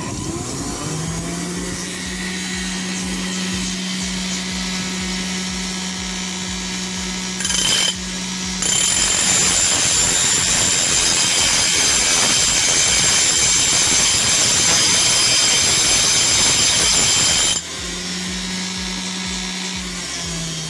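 Homemade bench grinder driven by a blender motor, running at high speed just after being switched on, with a steady hum and a high whine. About eight seconds in there is a brief loud burst. Then for about nine seconds the sound turns louder and harsher, before settling back to the steady run near the end.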